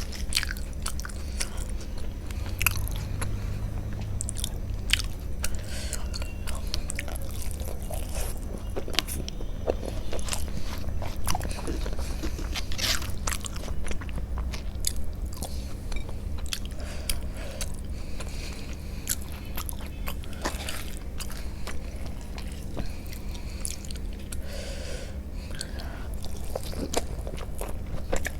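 Close-up eating sounds: chewing, biting and mouth smacks at an irregular pace, with a steady low hum underneath.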